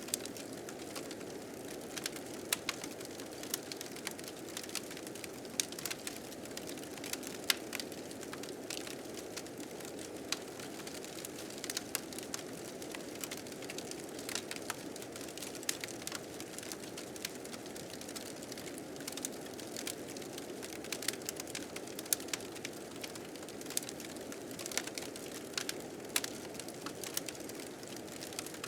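Wood fire crackling with frequent irregular sharp pops over the steady blowing of blizzard wind.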